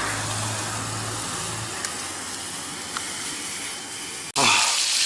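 Food sizzling in hot oil in a pan, a steady hiss that drops out for an instant about four seconds in and comes back louder. A low hum under it stops a second and a half in.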